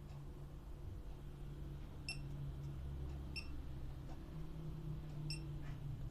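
INGCO VD10003 non-contact voltage detector pen giving three short, high-pitched beeps at uneven intervals, over a low steady hum.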